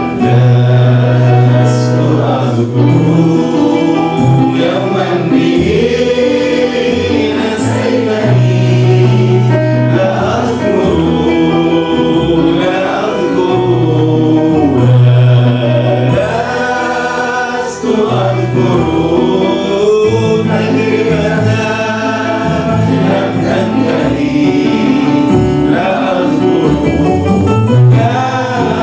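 Arabic Christian worship song: a male voice leading, with a group of voices singing along, over electronic keyboard accompaniment with long-held bass notes.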